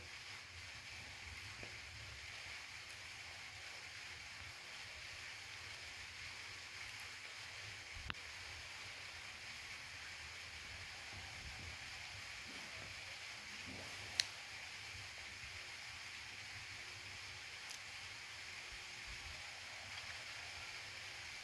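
Faint steady hiss of background noise, broken by a small sharp click about eight seconds in and a louder click about fourteen seconds in.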